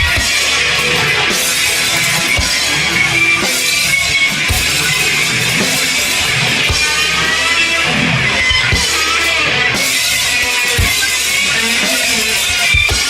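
Heavy rock music: distorted electric guitar playing over a drum kit, with irregular drum hits.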